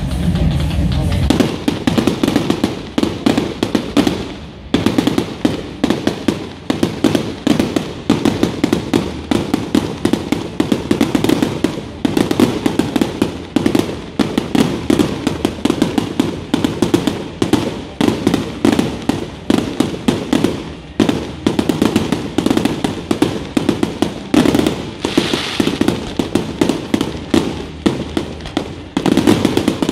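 Fireworks going off in a rapid, dense barrage of bangs and crackles, several a second, with only brief lulls.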